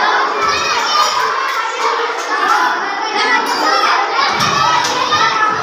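Many children talking and shouting over one another in a steady babble, with a few short knocks among the voices.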